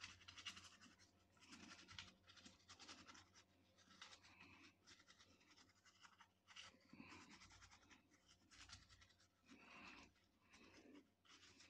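Faint scratchy rubbing in irregular strokes: paper towel being wiped over a laptop motherboard wet with isopropyl alcohol.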